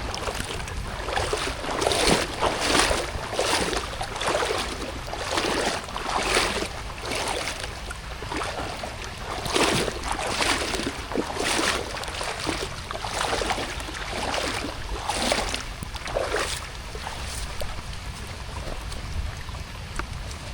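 Water sloshing and splashing in a regular rhythm of about one splash a second, over a steady low rumble. The splashes thin out in the last few seconds.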